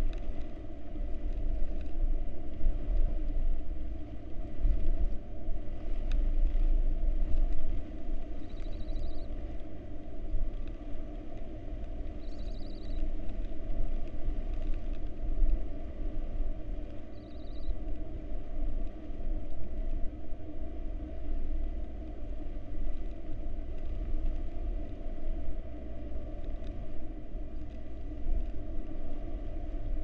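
Tropical-storm wind buffeting the nest-box camera's microphone: a steady low rumble that swells and dips with the gusts, with an even hiss of rain over it.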